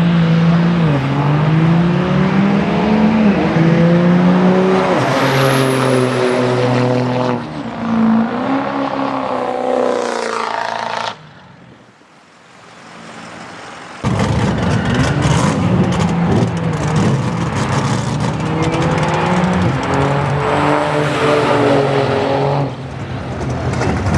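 Turbo-diesel pickup trucks accelerating hard in a drag race, engine pitch climbing and dropping back at each gear shift, with a faint high whistle rising over the first few seconds. The sound drops out for about three seconds near the middle, then another run of climbing revs and shifts follows.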